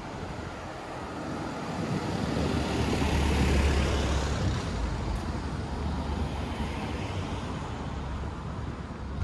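A car passing by, growing louder to a peak with a low rumble about three to four seconds in, then fading away.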